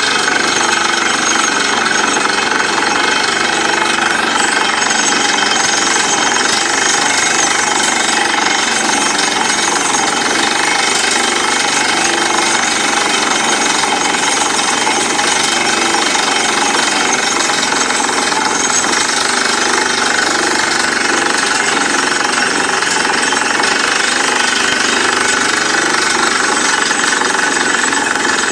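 Truck-mounted borewell drilling rig drilling into the ground: a loud, steady mechanical din of the rig's engine and the drill working, without a break.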